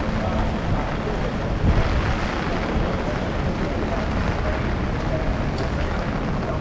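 Typhoon wind buffeting an action camera's microphone: a steady, dense rush with a heavy low rumble.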